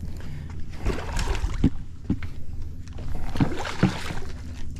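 A hooked redfish splashing and thrashing at the surface right beside a boat's hull, water slapping against the hull, in two bouts of sharp splashes: about a second in and again past three seconds.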